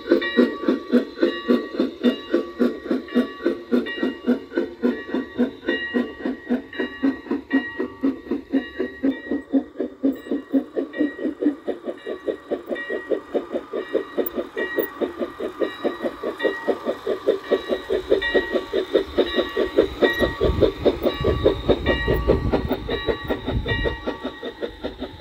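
G scale Bachmann model steam train running on its track with a steady rhythmic chuffing, about four beats a second. A lower rumble joins in for a few seconds near the end.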